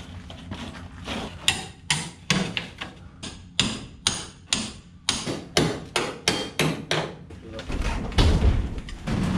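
Repeated knocking and banging on the frozen-shut rear ramp door of an enclosed snowmobile trailer, about two sharp blows a second as the door is worked to break it loose, ending in a heavier, deeper rumble near the end.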